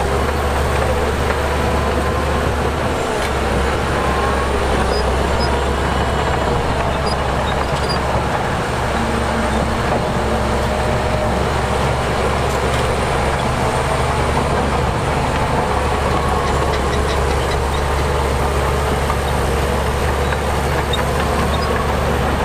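Diesel engine of heavy earthmoving machinery running steadily, a constant low hum with no clear rise or fall.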